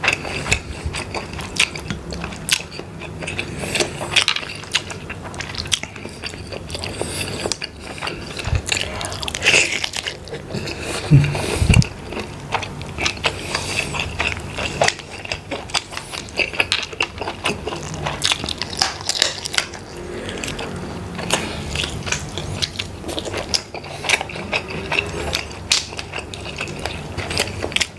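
Close-miked eating of shellfish in sauce: dense crackling, clicking and crunching of shells being cracked and chewed, with a louder thump about halfway through.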